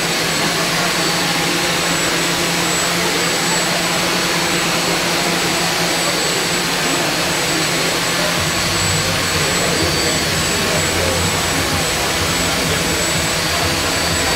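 Ducted-fan VTOL micro air vehicle's rotors running steadily with a loud whir and a thin high whine; a deeper hum joins about halfway through.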